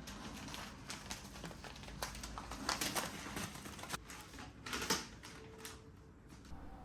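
Irregular clicks and rustling of objects being handled, with louder clatters about three seconds and five seconds in.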